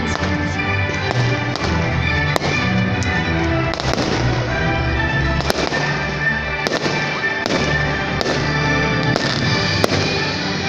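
Fireworks going off in a display, sharp bangs every second or two, over music with sustained notes.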